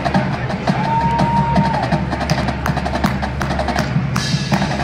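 Marching band drumline playing a steady rhythmic pattern of sharp snare strokes over bass drums, with a single high held tone for about a second near the start.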